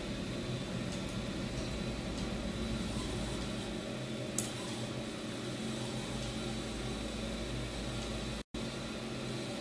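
Steady low room hum, like a fan or air handler running, with one light click about four and a half seconds in; the sound cuts out for an instant near the end.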